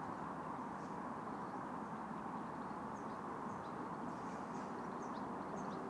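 Steady rush of a fast-flowing river, with faint, short bird chirps coming in from about halfway through.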